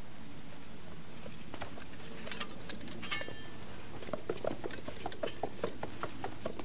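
Horse hooves clopping on hard ground, starting about four seconds in at about five hoofbeats a second, over a steady background hiss. A few scattered light clicks come before them.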